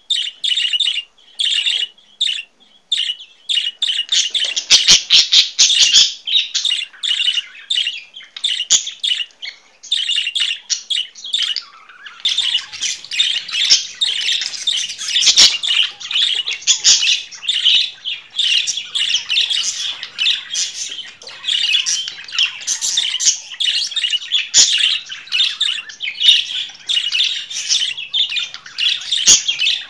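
Budgerigars chattering: a fast run of high chirps and squawks. It is broken at first, then nearly unbroken from about four seconds in, with a short lull near the middle.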